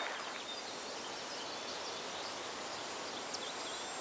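Countryside ambience: a steady high-pitched insect drone over a low hiss, with a few faint bird chirps.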